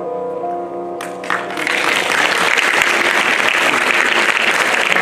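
Soft sustained music gives way to audience applause, which breaks out about a second in and carries on steadily.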